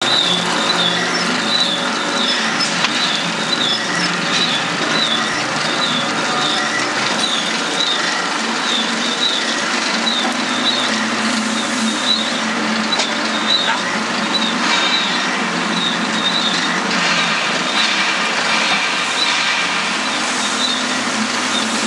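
Screw-press manure dewatering machine running steadily, its electric motor and gearbox turning the screw as manure is fed into the hopper, with a high chirp repeating about twice a second over the machine noise.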